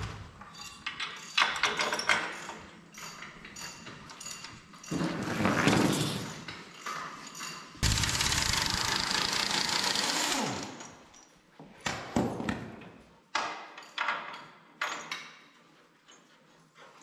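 Pneumatic impact wrench hammering as it tightens mounting bolts, one steady run of about three seconds near the middle, with scattered metal clinks and knocks of tools and parts around it.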